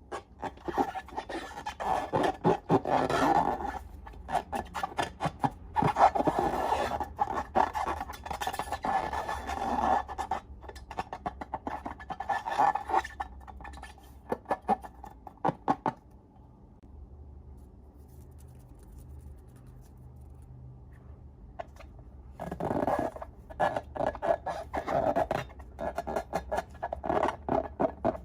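Slime being squeezed and worked by hand, giving bursts of dense crackling, squishing clicks. There is a longer pause around the middle.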